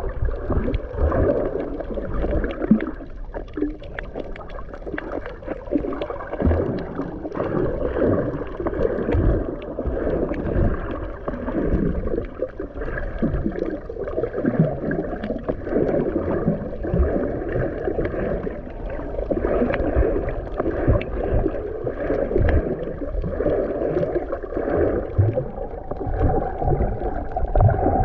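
Muffled, gurgling water noise from a camera held underwater while snorkeling, with irregular low bumps and sloshes throughout.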